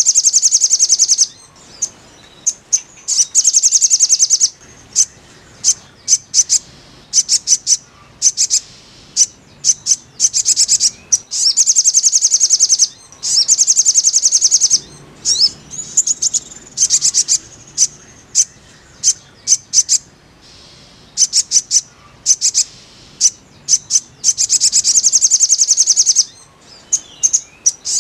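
Sogok ontong (spiderhunter) song: rapid, high-pitched trills of about a second each, repeated again and again, with short single chirps between them. This is the kind of recording played to coax a caged bird into singing.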